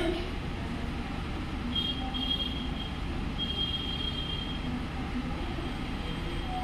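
Steady low rumbling background noise, with a few faint high-pitched tones about two and four seconds in.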